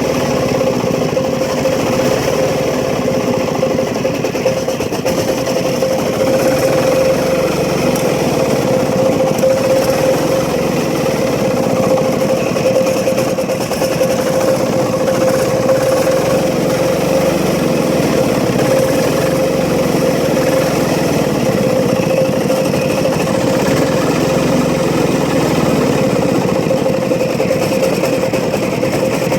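Diesel generator engine running steadily, with a constant high whine over the engine note.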